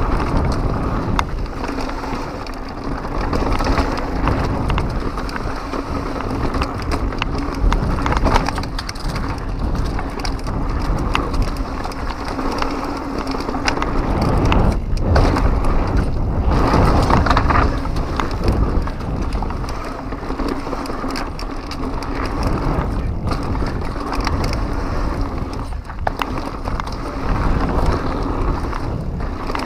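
Pivot Mach 6 full-suspension mountain bike descending a rough dirt trail at speed: continuous tire noise on loose dirt with frequent clattering knocks from the bike over bumps, under a low rumble of wind on the microphone.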